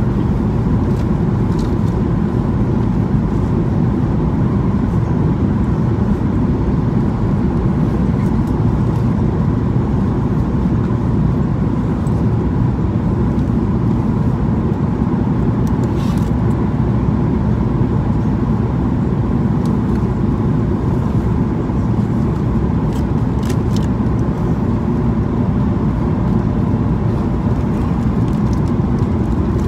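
Steady engine and airflow noise inside the cabin of a Boeing 737-800 descending on approach, from its CFM56-7B turbofans, with a faint steady whine over a deep rumble.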